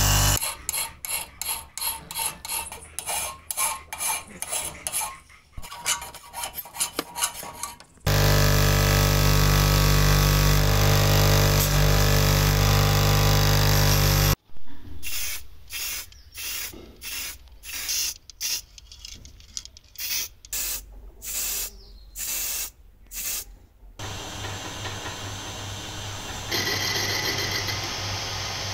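Rusty steel parts pressed again and again against a spinning wheel on a bench grinder, heard as rasping strokes about two a second, then about one a second. In between, the grinder motor runs steadily and loudly. Near the end a metal lathe runs, turning a steel part against its cutting tool.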